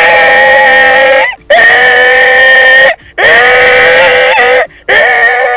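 A man imitating an animal cry with his voice: four long, loud, high-pitched held cries, each about a second and a half, with a short break between each.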